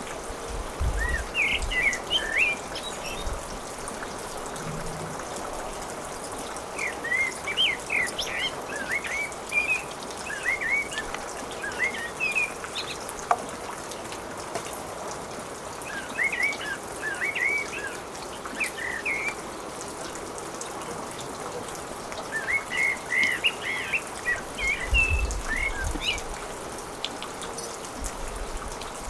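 Small birds chirping in repeated clusters of short, quick calls, over a steady hiss.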